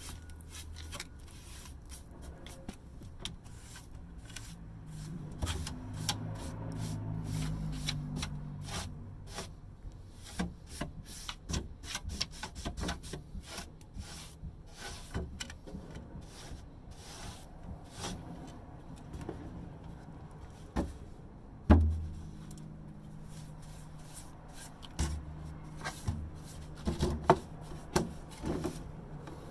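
Wooden dresser being handled and worked on: rubbing and scraping on wood with many irregular clicks and knocks, and one loud knock about two-thirds of the way through.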